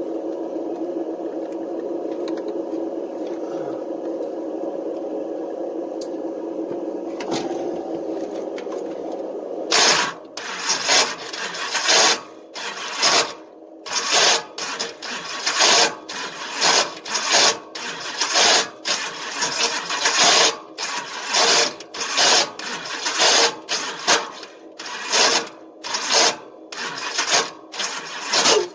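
A carbureted V8 is cranked by its starter motor, a steady whine for about ten seconds. Then comes a long run of loud, harsh grinding bursts, roughly one to two a second, as the starter fails to catch on the flex plate: its ring-gear teeth are chewed off.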